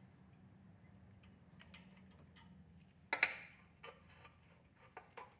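Faint clicks and taps of metal parts and a hand tool as the carburetor is fitted back onto a Honda GX160 engine, with one louder click a little after three seconds in.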